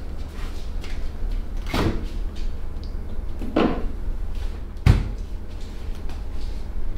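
Hand massage on a client: soft rubbing and handling sounds, with three louder slaps or knocks, the last and sharpest near the end, over a steady low hum.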